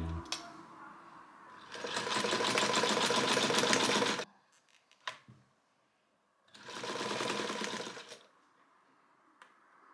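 Privileg Modell 370 zigzag sewing machine stitching in two short runs of a couple of seconds each, with a single click in the pause between them.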